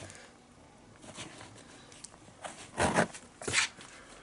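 Leather lace being pulled through the lace holes of a catcher's mitt: a few short rubbing, zipping strokes in the second half.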